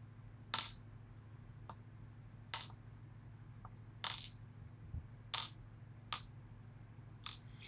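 Small metal lock pins from a gutted pin-tumbler lock cylinder clicking as they are set down one at a time. There are about six sharp, light clicks a second or so apart, with a few fainter ticks between them.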